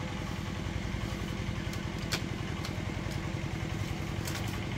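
A small engine running steadily, with a few light clicks over it, the sharpest about two seconds in.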